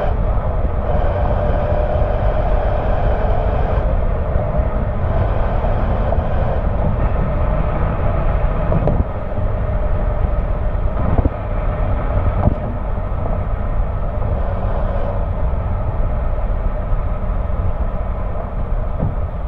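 Porsche Boxster S 3.2-litre flat-six exhaust note at highway cruise, recorded close to the tailpipe. Heavy wind and road rumble lie under it. The engine note breaks and drops at the very start as a gear is changed on the six-speed manual, then holds fairly steady.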